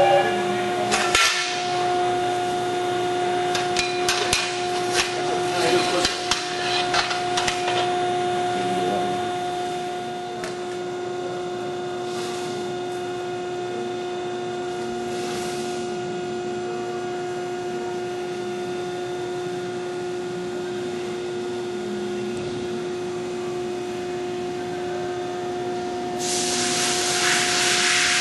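Carell 305HV CNC profile bending machine running with a steady hum, with a run of metallic knocks and clanks in the first eight seconds and a hiss that swells near the end.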